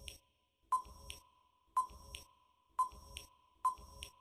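Quiz countdown timer sound effect: four short electronic beeps about once a second, each leaving a faint steady tone ringing on.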